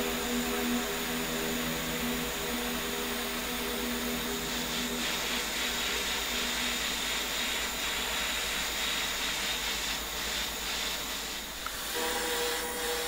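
Handheld gas blowtorch flame hissing steadily while it heats the steel seat tube around a rust-seized seatpost.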